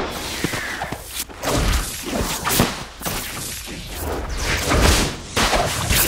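Designed film sound effects for a wizards' wand duel: magical spell blasts and whooshes layered with several heavy low thuds and impacts in quick succession.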